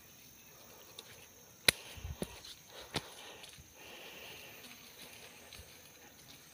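Footsteps and rustling on a leaf-littered forest path, with a few sharp clicks, the loudest a single crack a little under two seconds in.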